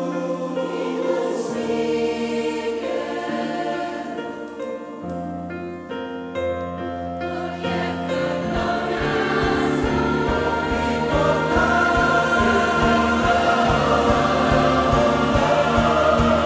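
Large choir singing with a band accompanying it. About halfway a steady low beat comes in and the music grows louder.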